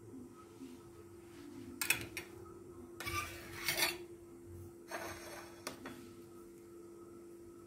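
Metal cake server and knife scraping and knocking against a glass serving plate and a ceramic plate as a slice of set pudding is lifted and served: a sharp knock about two seconds in, then a rasping scrape lasting about a second, and a shorter scrape and a click around five seconds in.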